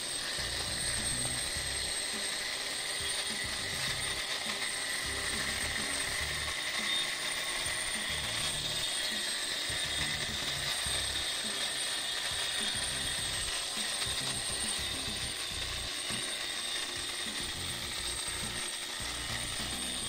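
4.5-inch angle grinder with a crack-chasing wheel running steadily under load, grinding a V-groove along a crack in a concrete slab, with a steady high whine over the grinding noise.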